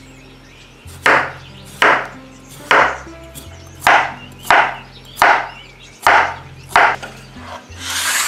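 Knife chopping a peeled potato on a bamboo cutting board: eight sharp chops, about one a second. Near the end comes a longer scraping swish as the board is moved over to the baking dish. Quiet background music runs underneath.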